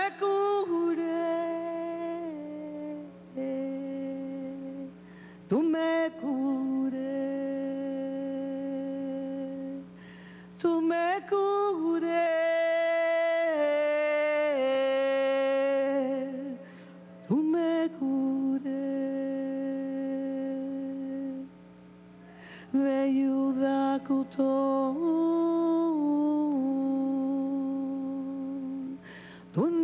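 A woman singing an indigenous chant in long, held notes that step up and down, in about five phrases with short breaks between them, over a steady low drone.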